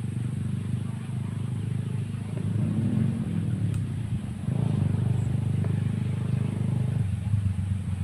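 An engine running steadily, its pitch rising and falling about three seconds in and getting louder from about halfway.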